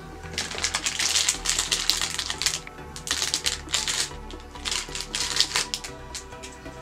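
Clear plastic packaging crinkling and rustling as it is handled, in three bursts of crackle, over background music.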